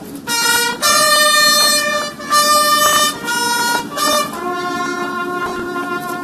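Military bugle call at a graveside salute: a run of loud held brass notes stepping between a few pitches over about four seconds, then a quieter, lower held note.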